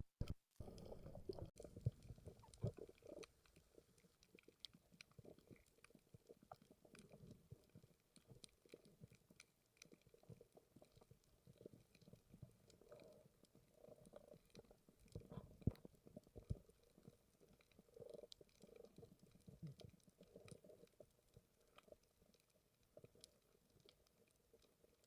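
Near silence: faint underwater ambience with scattered light clicks and soft, low, muffled rumbles, a little louder a few seconds past the middle.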